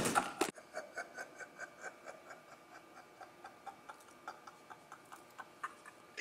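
A loud sound cut off about half a second in, then faint, even ticking at about four ticks a second.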